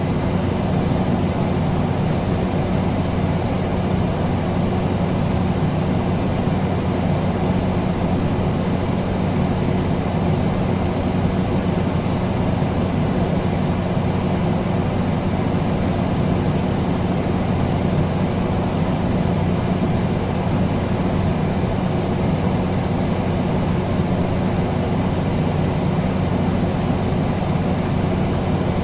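Air conditioner running steadily: a constant low hum under an even rush of fan air.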